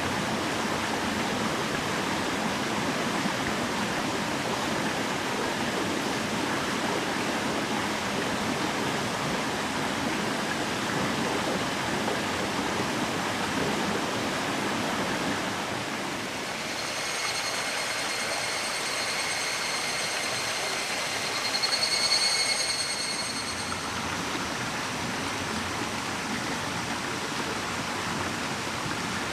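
Shallow mountain stream running steadily over rocks and gravel. About halfway through, a high, pulsing animal call sets in for several seconds, loudest just before it fades.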